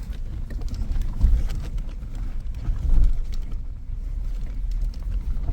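Suzuki Jimny driving slowly over a rough off-road track: a steady low engine and drivetrain rumble, with heavier thumps about a second in and again about three seconds in.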